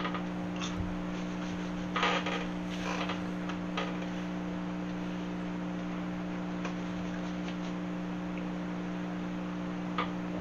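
A steady low electrical hum, with a few short crunchy noises in the first four seconds as a piece of breaded, deep-fried bowfin is bitten and chewed.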